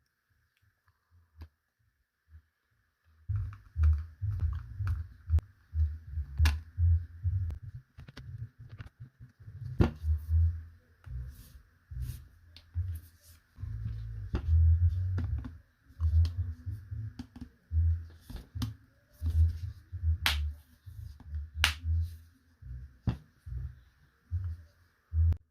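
Handling noises from a small plastic Bluetooth speaker being worked on by hand: a run of dull low thumps and bumps with sharp plastic clicks among them. It starts about three seconds in, after a nearly quiet start.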